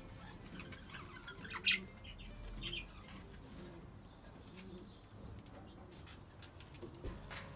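Budgerigars chirping faintly, with a couple of sharper chirps about two and three seconds in.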